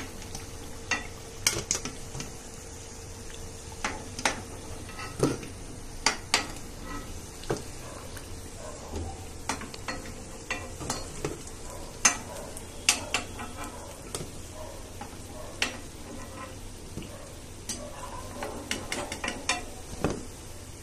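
Oil sizzling as stuffed pastries deep-fry in a kadhai, with a perforated steel skimmer clinking sharply and irregularly against the pan and a steel plate.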